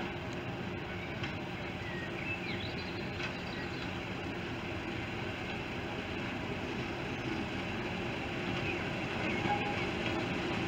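Diesel locomotive's engine running as it approaches slowly hauling coaches, growing gradually louder, with a steady hum.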